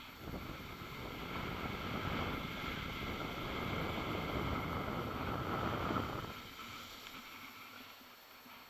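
Rushing noise of a downhill run on skis: wind on the microphone with skis sliding over snow. It builds for about six seconds, then eases off near the end.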